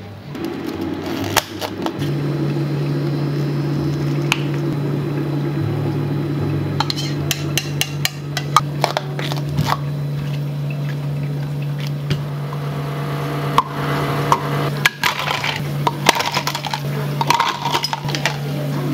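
Kitchenware clinking and tapping during food preparation, in scattered sharp knocks that grow busier about seven seconds in, over a steady low hum of equipment.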